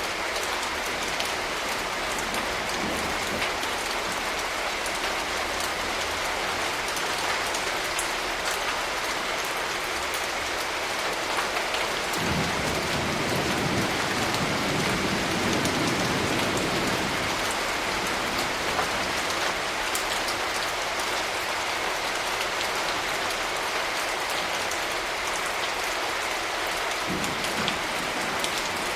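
Steady rain falling, a continuous hiss with scattered drops tapping. About twelve seconds in, a low rumble of thunder swells and dies away over some five seconds.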